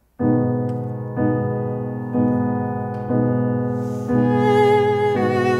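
Piano chords struck about once a second, each left to ring and fade, with a viola coming in about four seconds in on a sustained note played with vibrato.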